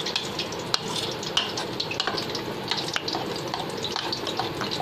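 A spoon stirring a thick batter of gram flour, rice flour and maida in a bowl. It makes a steady wet swishing with many small scattered clicks.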